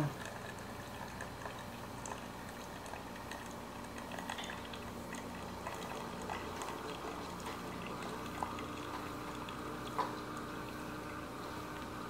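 Famiworths single-serve coffee maker near the end of its brew cycle: a steady hiss of heated water and coffee running into the mug, with scattered small ticks and two sharper clicks in the second half.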